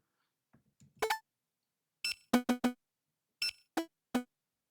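Short synthesized electronic beeps in quick groups of two to four clipped notes: a barcode-scanner beep and trial confirmation tones for a handheld data collection terminal.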